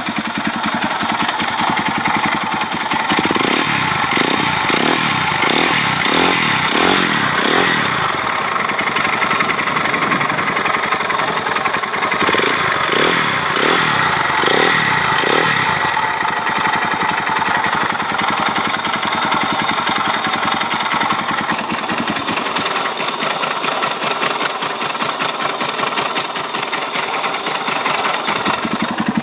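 Suzuki DR-Z single-cylinder four-stroke motorcycle engine running, revved up and down in two spells of a few seconds each, with a knock in the engine that the owner is showing.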